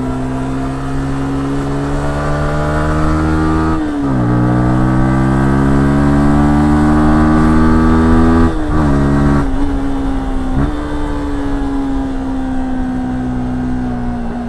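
Yamaha R15S 155cc single-cylinder engine accelerating through the gears: revs rise, drop sharply at an upshift about four seconds in, climb again, and drop at another gear change past the middle. After two more quick pitch changes the revs ease off and fall slowly to the end.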